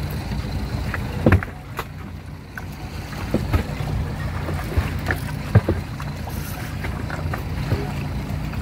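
Fishing boat at sea: a steady low engine hum with wind and water noise, broken by scattered sharp knocks, the loudest about a second in and again a little past halfway.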